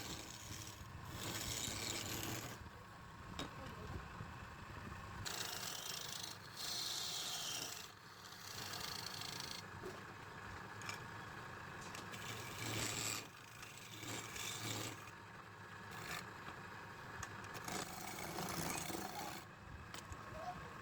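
Wood lathe running with a steady motor hum, while a tool scrapes and rubs against the spinning wood in stretches of a few seconds at a time.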